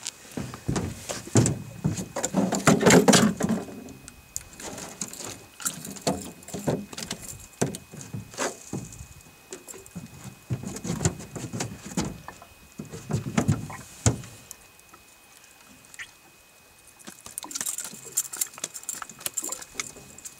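Handling noise of a freshly landed lake trout in a boat: irregular knocks, clatter and rustling, loudest about two to four seconds in.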